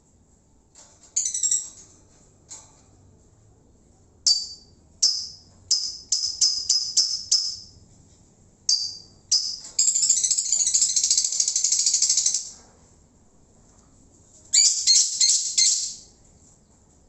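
Lovebird calling: a string of shrill, high chirps, each starting sharply and trailing off, then a continuous rapid chattering trill for about two and a half seconds midway, and another burst of quick chirps near the end.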